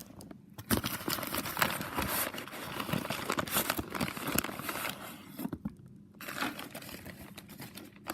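Newspaper packing crumpling and rustling as it is handled and pulled out of a box, in irregular crackling bursts with a short pause a little after halfway.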